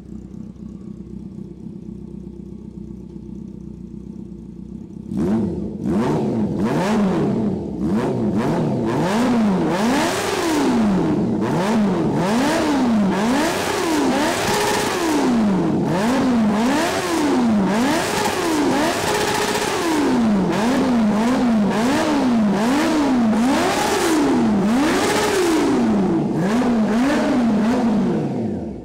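Honda CB400 with an aftermarket full exhaust idling, then from about five seconds in revved again and again in quick throttle blips, its pitch rising and falling with each one, before it drops back to idle near the end.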